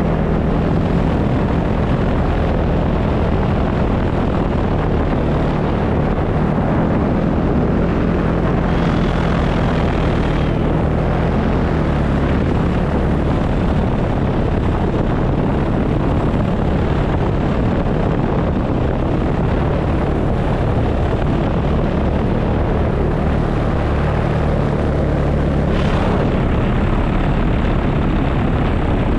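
Paramotor engine and propeller running steadily in flight, a constant loud drone with no change in pitch.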